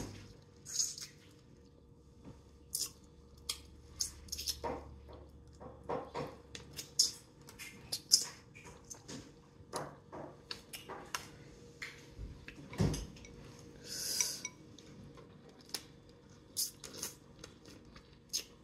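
Close-miked eating of seafood-boil crab: irregular sharp clicks, lip smacks and sucking as meat is pulled from the shell and chewed, with a dull knock about thirteen seconds in.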